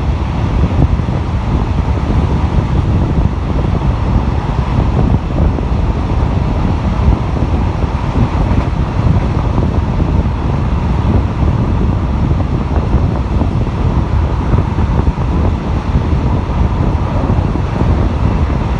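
Wind buffeting the microphone at the open window of a moving RHN diesel railcar, over the low, steady rumble of the train running on the rails.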